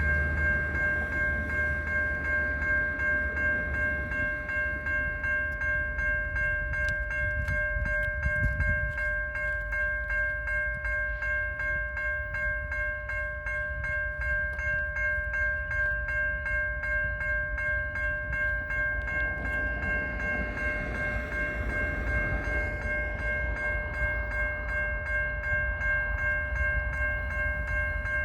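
GO train led by a Metrolinx MP59AC locomotive, heard as a low rumble with a steady high ringing tone over it and many small rapid clicks.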